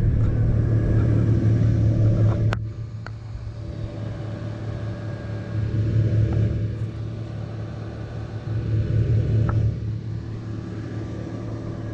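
A Toyota 4Runner's engine idling steadily, a low hum that drops in level after a sharp click about two and a half seconds in.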